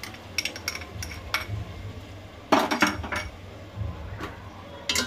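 Spoon and wooden spatula knocking and scraping against a metal cooking pot as yogurt is added to potatoes and tomatoes: a run of light clinks and taps, with one louder clatter about halfway through.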